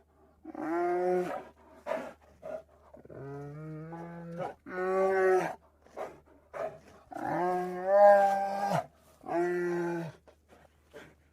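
A bear vocalizing: a series of five drawn-out, steady-pitched calls, with short clicks between them. The second call starts lower and rises, and the longest, loudest one comes about two thirds of the way through.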